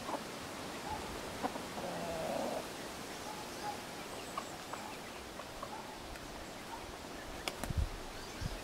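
Rooster giving a few short, soft clucks over a steady outdoor hiss, with a click and some low thumps near the end.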